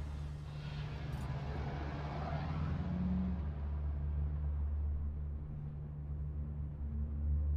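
A low, steady rumbling drone, with a soft rush of hiss swelling and fading about one to three seconds in.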